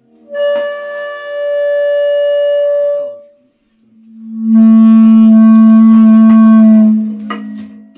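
Electric guitar through effects sounding two long, steady held notes: a higher one for about three seconds, then after a short gap a lower, louder one for about three seconds, followed by a couple of short clicks near the end.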